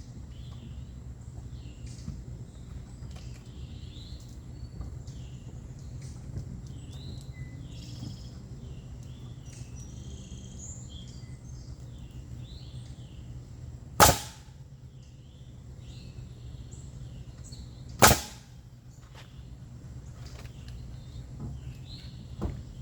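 Two sharp, loud bangs about four seconds apart from wood-framing work, over birds chirping and a low steady hum.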